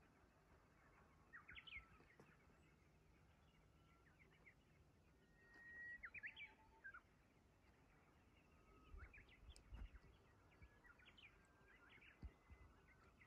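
Japanese bush warblers (uguisu) singing faintly, several phrases of a long held whistle followed by quick rising and falling notes. A brief low rumble about two-thirds of the way through.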